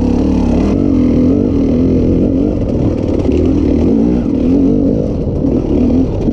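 KTM EXC 300 single-cylinder two-stroke enduro engine, heard through a microphone inside the rider's helmet, revving up and down in short swells as the throttle is worked over rough ground.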